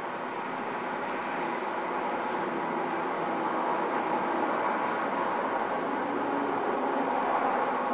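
Road traffic: a steady rush of a passing vehicle that grows gradually louder, peaking near the end.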